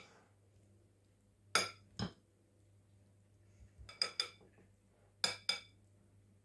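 Metal spoon clinking against a white ceramic bowl as chopped pineapple is pressed down into an even layer: about half a dozen short, sharp clinks, several in quick pairs.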